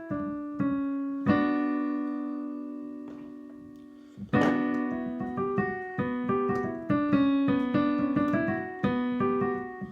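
Piano music: a few struck chords, one left to ring and die away for about three seconds, then a quicker run of notes that fades out near the end.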